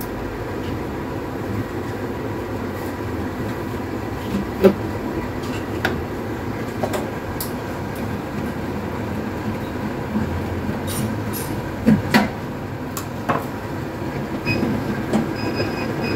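Screwdriver undoing screws in the metal housing of a Mindray BC-30S hematology analyzer: scattered clicks and light knocks, a pair close together about 12 seconds in, over a steady rumbling background noise.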